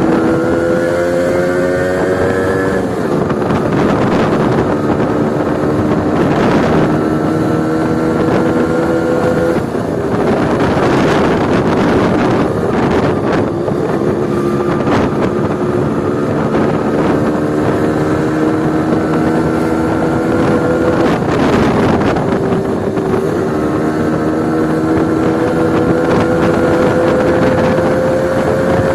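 Honda H100S two-stroke motorcycle ridden hard with the db killer removed from its exhaust, so it runs very loud. The engine note climbs steadily and drops back at gear changes several times, with wind rushing over the microphone.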